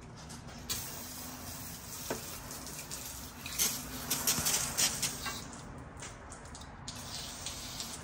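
Aerosol brake cleaner hissing as it is sprayed in a series of spurts onto a power steering rack and its pressure switch, washing off leaked power steering fluid. The spray starts about a second in and is loudest in the middle.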